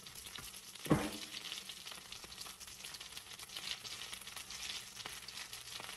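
Pork chops sizzling and crackling in hot oil in a cast-iron skillet, a steady hiss with fine pops. A single sharp thump sounds about a second in.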